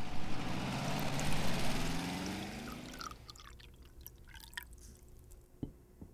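Water poured from a glass pitcher into a drinking glass, its pitch rising as the glass fills. After about three seconds it gives way to quieter drips and light clicks of glass.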